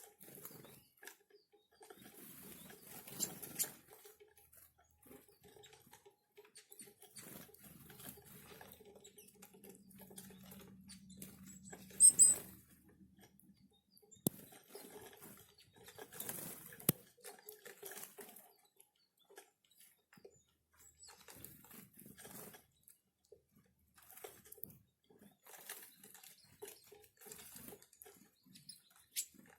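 Small forest birds feeding on scattered seed in winter: faint rustling and light pecking taps, with a short, high call about twelve seconds in.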